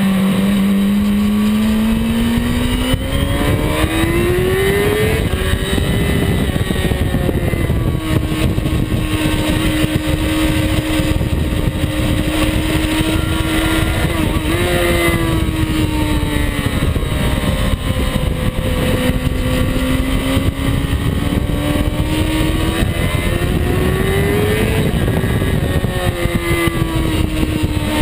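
Yamaha YZF-R6's inline-four engine running hard at speed, its revs rising and falling as the bike accelerates and brakes through corners. Heavy wind rush on the microphone runs underneath.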